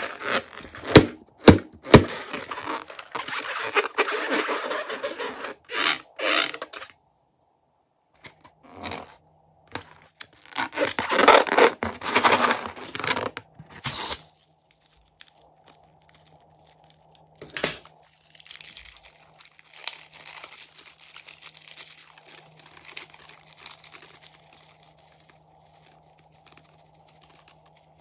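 A filled rubber balloon being cut open and squeezed out over a bowl of slime. There are a few sharp clicks about a second in, then bursts of crackling and crunching, and softer crinkling and rubbing in the later part.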